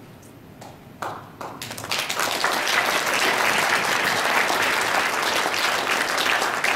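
Audience applause: a few scattered claps about a second in, quickly swelling into steady clapping from a roomful of people.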